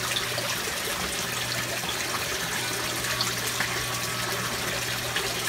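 Water running steadily from a PVC pipe and splashing into a filter bucket and the sump below, with a steady low hum underneath.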